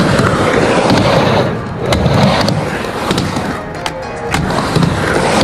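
Skateboard riding a mini ramp: wheels rolling with a few sharp clacks of the board and trucks striking the ramp, the sharpest about two and three seconds in, over background music.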